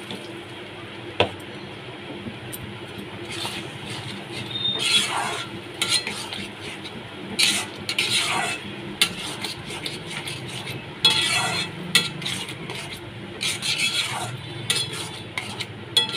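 Spatula stirring and scraping a thick, wet curry masala in a metal kadai, in repeated strokes with a few knocks against the pan, over faint sizzling and a steady low hum.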